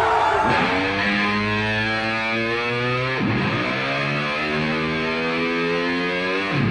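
Background rock music: distorted electric guitar holding sustained chords, each phrase sliding up in pitch at its start and dropping away about every three seconds.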